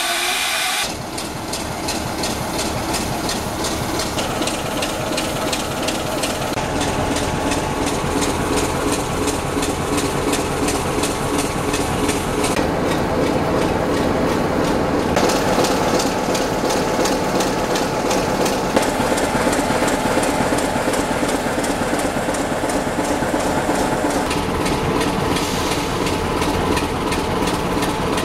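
Class 25 diesel-electric locomotive's Sulzer six-cylinder diesel engine running, a steady rapid pulsing throb.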